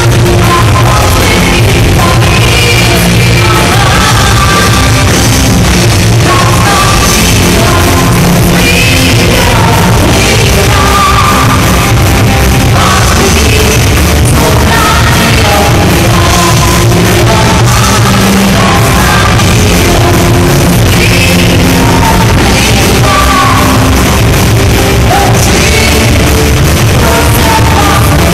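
Live rock band playing loudly, with a singer's vocals over guitars and drums.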